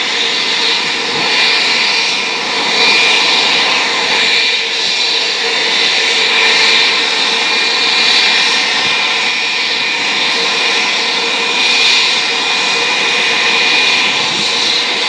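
Airbus A320-family airliner's turbofan engines running at ground idle: a loud, steady rush with a steady high whine over it.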